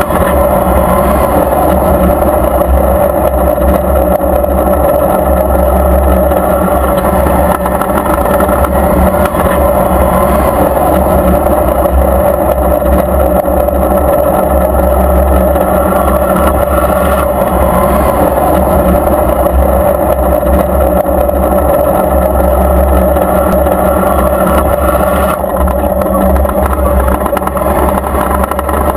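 Battle tank's engine running steadily, heard close up from a camera mounted on the turret: a loud, unbroken drone with a deep rumble.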